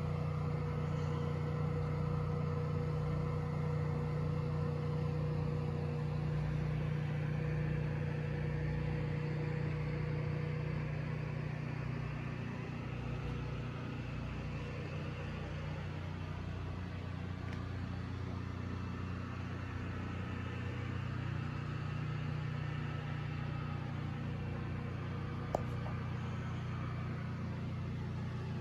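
A steady mechanical hum with a few fixed tones, easing a little partway through, and one small click near the end.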